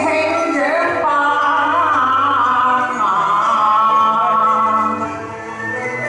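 A woman singing a Cantonese opera song into a microphone, her voice wavering through a long melodic phrase over instrumental accompaniment.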